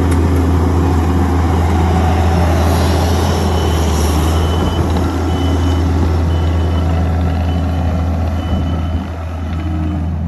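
Kubota SVL90 compact track loader's diesel engine running steadily as the machine pushes a grading blade through loose soil. A high-pitched beeping comes and goes in the middle.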